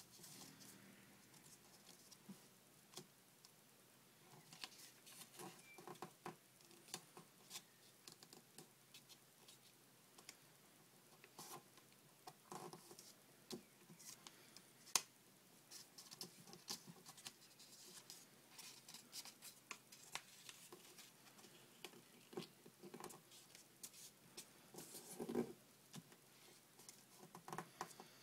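Faint, irregular rustling and crisp ticks of a sheet of paper being folded and creased by hand, with one sharper click about halfway through and a louder rustle near the end.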